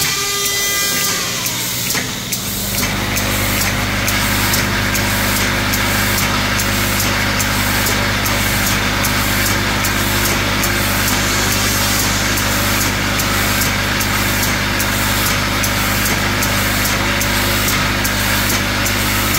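Electromagnetic vibratory bowl feeder running, a steady low hum with a busy rattle of plastic scoops moving along the bowl's track, and a faint regular ticking about twice a second. The hum comes in about two and a half seconds in.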